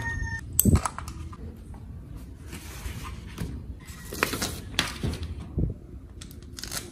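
Handling noises: sharp knocks from a 3D-printed plastic mold under a second in, then the rustling of a paper sheet being peeled, folded and laid down, with a few lighter taps.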